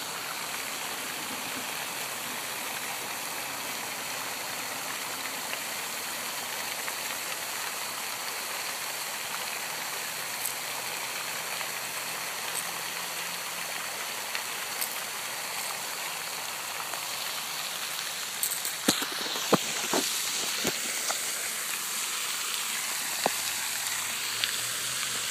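Steady rushing hiss like running water or wind on the microphone, with a few light knocks and clicks about three quarters of the way through.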